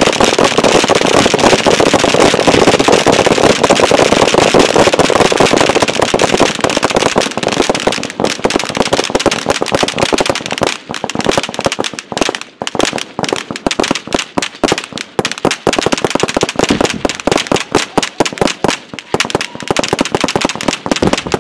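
Many guns firing at once on a firing line: a dense, unbroken volley of rapid shots that thins after about eight seconds into separate shots and short bursts.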